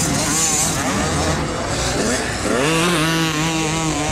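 Motocross bike engines running hard and revving up and down as the bikes race around the track. About halfway through, one engine climbs in pitch and holds a steady high note.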